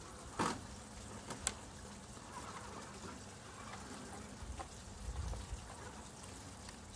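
Small garden waterfall trickling steadily, with two sharp clicks about half a second and a second and a half in.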